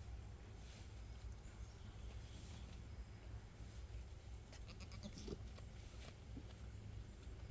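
A goat bleating faintly, one short call about five seconds in and a weaker one soon after, over a steady low rumble.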